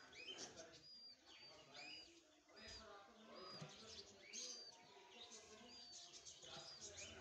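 Faint bird chirping: short, high, repeated chirps, roughly one or two a second, with faint voices in the background.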